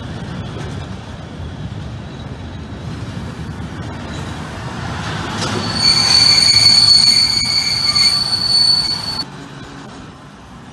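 Train running past with a low rumble, then a loud high-pitched squeal of steel on the rails that sets in about five seconds in and lasts nearly four seconds before cutting off.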